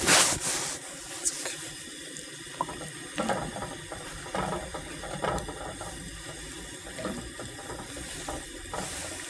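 A wooden spoon stirring salt into hot water in a cast-iron Dutch oven: water swishing with irregular scrapes and knocks of wood against the pot, over a steady gas-burner hiss. A short rushing noise comes right at the start.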